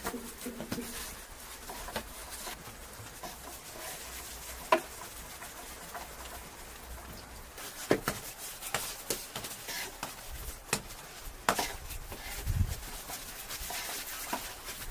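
Hands dividing bread dough and pressing it into balls on a flour-dusted wooden board: soft pats and handling with scattered sharp taps, and one dull thump near the end.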